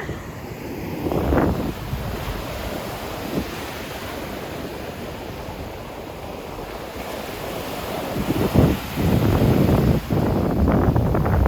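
Surf washing on a beach, with wind buffeting the microphone; the rumble swells louder in gusts, most strongly in the last few seconds.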